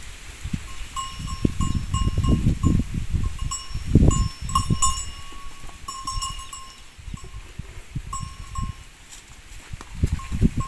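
Cattle bells clinking irregularly, short ringing notes coming in clusters, over low, uneven rumbles and thumps close to the microphone.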